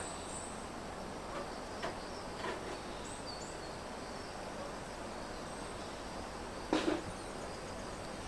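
Outdoor ambience: a steady background hiss with faint, high-pitched insect chirping, and one short, louder sound near the end.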